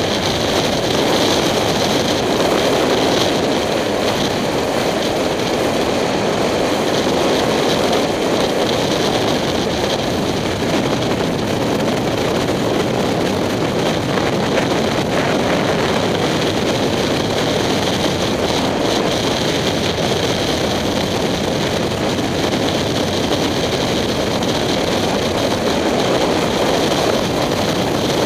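Steady wind rush over a helmet-mounted camera at road speed, mixed with the running of a 2007 Kawasaki Ninja 250's parallel-twin engine at a steady cruise.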